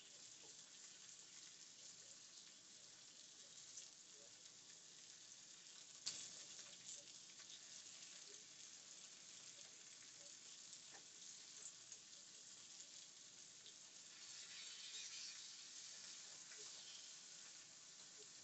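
Slices of hickory smoked ham sizzling faintly as they fry in a skillet, with a couple of light knocks as the pieces are turned; the sizzle grows a little louder about fourteen seconds in.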